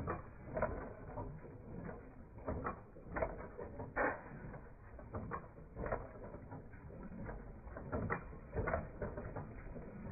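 Running machinery clattering: irregular sharp clicks and knocks, often less than a second apart, over a steady low rumble.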